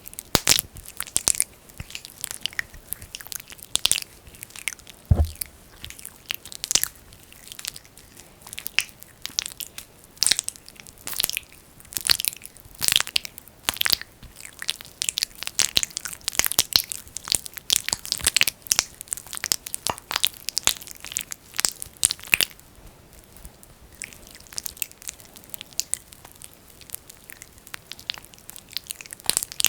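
Fingers working thick, sticky Vaseline against the microphone in an ear massage: dense, irregular sticky crackles and squelches, with one low thump about five seconds in. The crackling briefly dies down about three-quarters of the way through, then goes on more sparsely.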